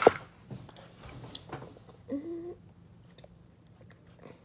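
A knock and clothing rustle as a child's arm brushes past the phone at the start. Then scattered light clicks and scratches of a pencil on paper, with a brief pitched squeak about two seconds in.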